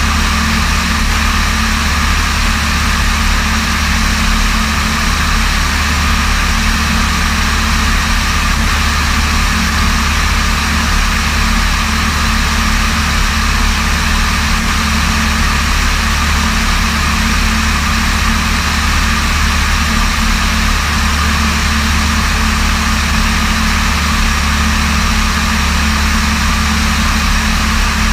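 Light aircraft's piston engine and propeller droning at a steady cruise setting, with an even rushing noise over it that does not change.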